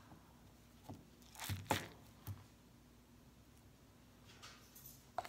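Small objects being handled: a few brief light knocks and rustles, loudest about a second and a half in, with a sharp click near the end.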